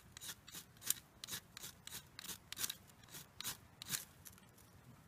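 A knife blade scraping in quick, even strokes, about three a second, over birch-bark tinder while a fire is being lit; the strokes stop about four seconds in.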